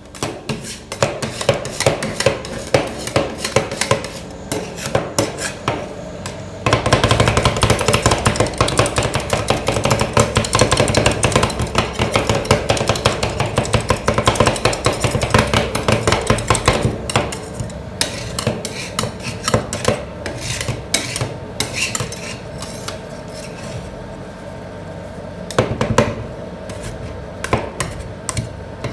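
Two steel spatulas chopping and scraping ice cream mix on a frozen stainless-steel cold plate: a fast, continuous run of metal taps and scrapes, at its loudest and busiest from about a quarter of the way in to a little past the middle.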